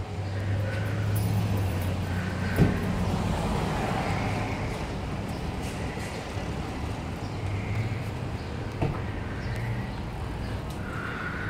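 Street traffic with a vehicle engine running steadily close by as a low hum, swelling for a few seconds as traffic passes. A single sharp knock comes about two and a half seconds in, and a fainter click near nine seconds.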